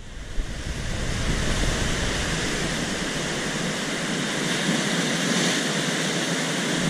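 Ocean surf washing and breaking over rocks in a steady rush, fading in over the first second.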